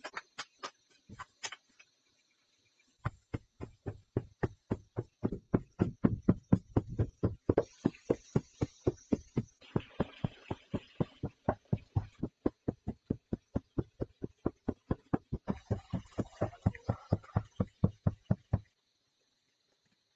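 A few scrapes of a hoe in loose soil, then a long run of steady thumps, about three a second, of feet stamping down loose earth to compact it. The thumps stop abruptly a little before the end.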